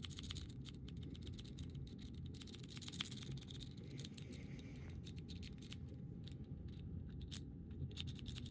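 A lock pick jiggled in a lock's keyway: quick, irregular light clicks and scratches of the pick working against the pins.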